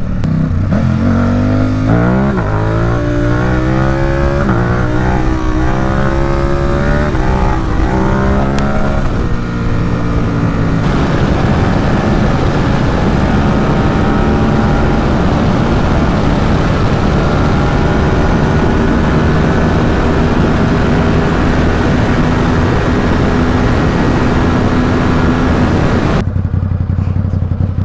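Ducati Supersport 950 S's 937 cc L-twin engine accelerating hard through several gears, its pitch climbing and dropping at each upshift, then holding a steady high-speed cruise under a loud rushing noise. Near the end the rushing fades as the bike slows.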